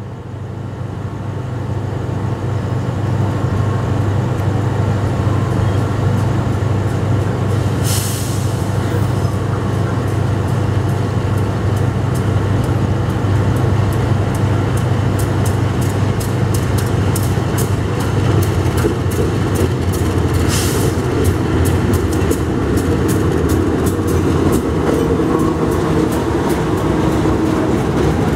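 Two GE diesel-electric locomotives, a CC 203 and a CC 206, running a double-headed passenger train in toward the station, with a steady low engine drone. Wheel clicks over the rail joints come faster and faster from about halfway through, and two short hissing bursts sound about 8 and 21 seconds in.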